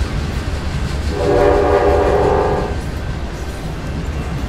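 Train horn sounding once, a chord lasting about a second and a half starting about a second in, over a steady low rumble of a running train.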